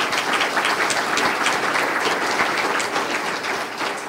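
Audience applauding, many hands clapping together in a dense, steady patter that dies away near the end.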